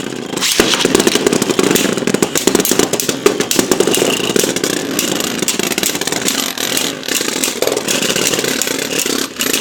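Two Beyblade Burst spinning tops, Revive Phoenix and Hell Salamander, spinning and clashing in a plastic stadium: a loud, dense, rapid rattling clatter of plastic and metal scraping and knocking together.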